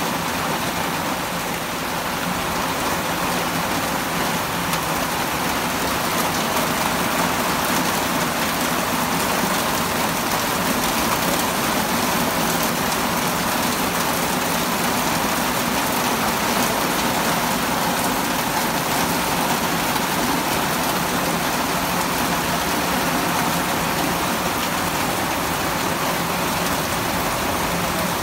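Heavy rain pouring steadily: a dense, even hiss of rain falling on the pavement, lawn and roofs.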